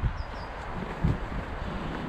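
Wind buffeting the microphone in uneven low thumps over a steady outdoor rush of background noise, with two brief high chirps just after the start.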